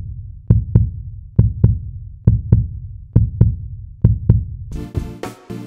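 Heartbeat sound effect: paired low thumps, lub-dub, repeating a little under once a second. About five seconds in, music with a beat comes in over it.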